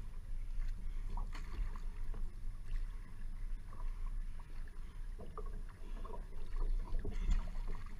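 Single-blade paddle strokes in a one-person outrigger canoe: the blade catching and splashing through the water in an uneven run of strokes, over a steady low rumble.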